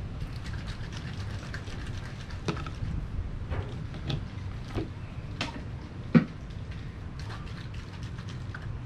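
Aerosol can of expanding spray foam being shaken by hand, its contents knocking in scattered, irregular clicks over a steady low hum.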